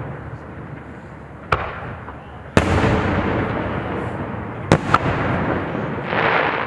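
Aerial fireworks going off: four sharp bangs, the loudest about two and a half seconds in and two in quick succession near five seconds, each trailing off in a long rolling rumble. A crackling burst follows near the end.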